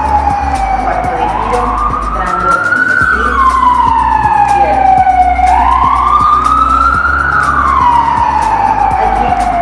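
A siren wailing, its pitch slowly rising and falling about once every four and a half seconds, over a low bass that changes in steps.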